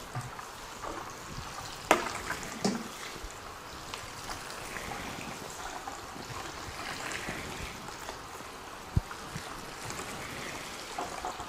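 Water showering from a watering can's rose onto potting soil in seed trays, a steady trickle. A sharp knock about two seconds in, a smaller one just after, and another brief click near nine seconds.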